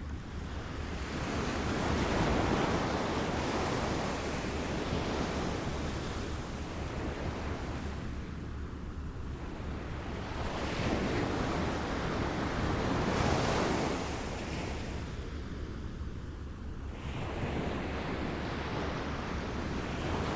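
Small waves lapping and washing ashore, swelling and ebbing every few seconds, with wind on the microphone.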